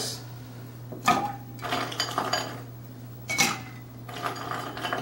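Ice cubes dropped by hand into a stainless-steel cocktail shaker: a series of separate sharp clinks and rattles, about six over the few seconds, with a small cluster around two seconds in.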